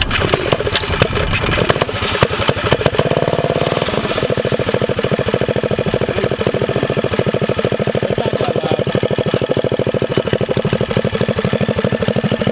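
Small single-cylinder four-stroke minibike engine, a Predator 212, running. It is uneven for the first couple of seconds, then settles into a steady idle.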